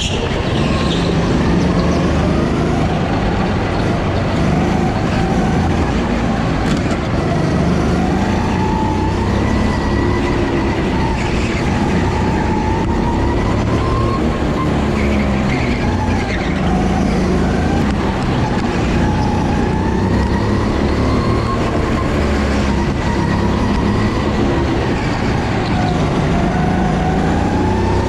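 Go-kart engine running hard around a track, its pitch rising and falling every few seconds as it accelerates and eases off, over a steady low rumble.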